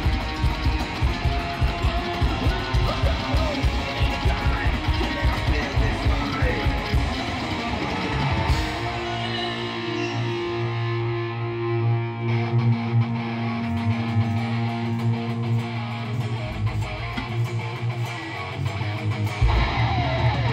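Psychobilly band playing live, with upright bass, electric guitar and drums driving a fast beat. About eight seconds in the drums drop out for a break of a few held notes. The full band comes back in near the end.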